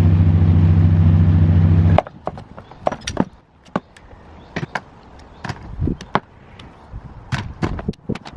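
A steady, loud low mechanical drone that cuts off abruptly about two seconds in, followed by scattered light knocks and clicks.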